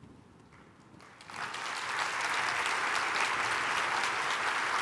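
Audience applauding: a short hush, then clapping breaks out about a second in and quickly builds to steady, sustained applause.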